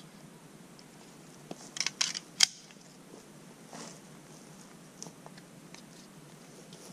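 Sharp metallic clicks and clacks of a Magnum Research Desert Eagle .50 AE pistol being handled and loaded, with a quick cluster about two seconds in and the sharpest clack just after it. A few fainter clicks follow; no shot is fired.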